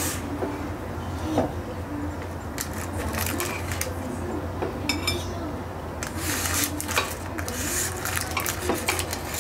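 Chopsticks tapping and scraping in an air fryer basket lined with parchment paper, the paper crackling as chicken wings are lifted out and set down on a porcelain plate, over a steady low hum.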